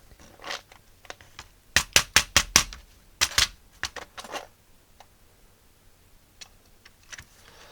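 Sharp clicks and taps of small Atari 65XE keyboard parts being handled as the rubber key cups are taken out: a quick run of about six clicks about two seconds in, then a few more spaced out.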